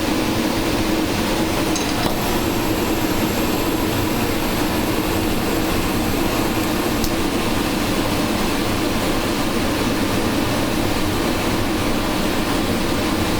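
Big multi-jet glassblowing hand torch burning with a steady, even rush of flame.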